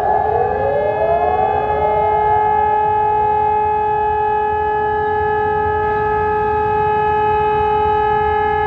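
Civil defense siren holding one steady, loud tone after winding up, with a low rumble underneath.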